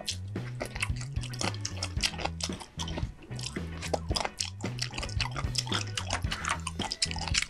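Wet chewing and mouth clicks of someone eating sea squirt bibimbap: a rapid, irregular run of sticky, squelchy smacks.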